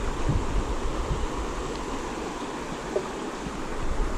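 Steady rush of creek water running over a shallow riffle.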